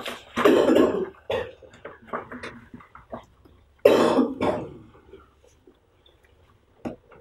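Coughing: two loud coughing bouts, one just under a second in and another about four seconds in, with smaller throat sounds between them.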